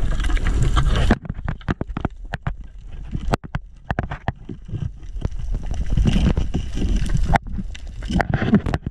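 Underwater sound picked up through a camera housing on a reef: a loud, muffled rush of water noise that cuts off abruptly about a second in, then many scattered sharp clicks and knocks over water noise that swells and fades.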